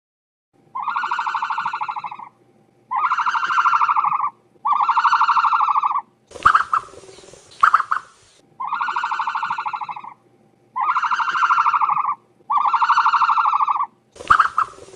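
Ostrich calls from a sound-effects recording: three drawn-out, buzzy calls of about a second and a half each, then a hissing stretch broken by two sharp squawks, and the whole sequence again.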